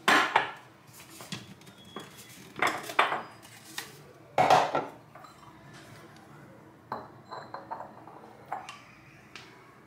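Kitchen dishes and utensils knocking and clinking in a string of separate sharp strikes, the loudest near the start, around three seconds and around four and a half seconds in, with lighter ticks afterwards.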